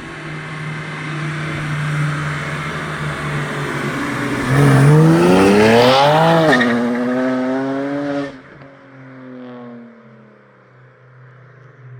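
BMW E92's N54 twin-turbo inline-six exhaust running steadily, then accelerating hard about halfway through with a rising pitch. Just after two-thirds of the way in the loud sound cuts off sharply and the engine note falls away to a quieter steady hum.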